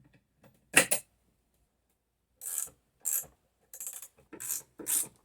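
A sharp metal clack, then a ratchet wrench clicking in short strokes about two a second as it tightens a bolt fastening a woodworking vise to the bench.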